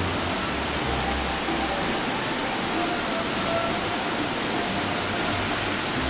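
Fast-flowing stream rushing over rocks: a steady, even rush of water, with faint background music underneath.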